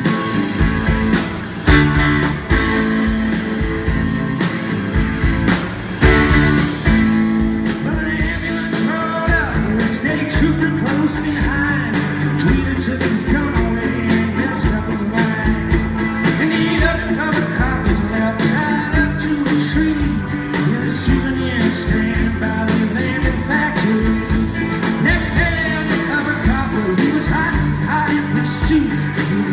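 Live rock band playing with a male lead vocal: electric guitar, electric bass, acoustic guitar, organ and drums keeping a steady beat.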